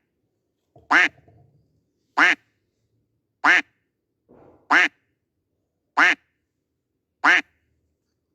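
Duck quack sound effect played on a loop: the same single quack repeats every 1.25 seconds or so, six times.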